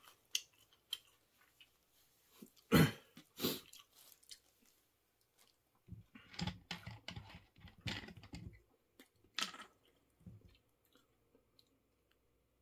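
Close-miked chewing and mouth sounds of someone eating, in irregular bursts with clicks. The loudest comes about three seconds in, a dense run from about six to nine seconds, and it goes quiet near the end.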